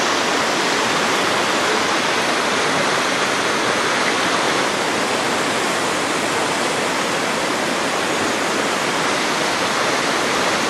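Whitewater river rapids rushing steadily, a dense, unbroken noise of churning water.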